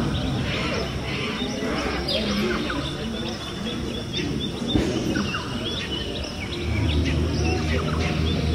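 Jungle ambience of many short bird chirps and calls over a steady background hum and murmur, the low hum growing louder near the end.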